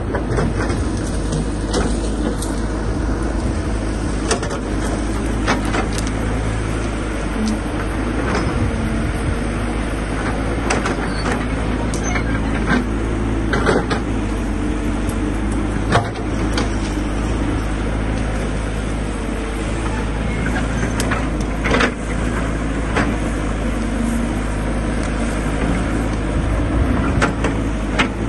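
Caterpillar hydraulic excavator's diesel engine running steadily under load as its bucket pushes and rakes through brush, with irregular sharp cracks of branches snapping and breaking.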